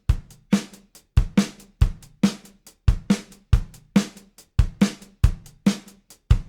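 Background music: a drum-kit beat with kick and snare, steady and fast at about three hits a second.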